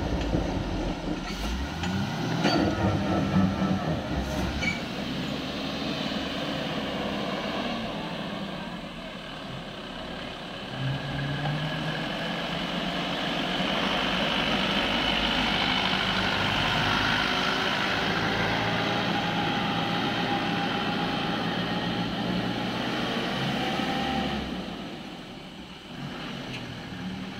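Diesel engine of a loaded goods lorry running as it passes close by, growing louder from about a third of the way in and dropping away near the end.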